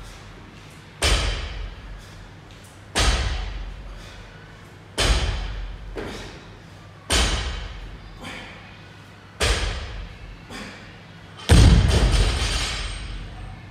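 Barbell loaded with bumper plates set down on the floor at each rep of a deadlift set: six heavy thuds about two seconds apart, each dying away over a second or so, the last one the loudest.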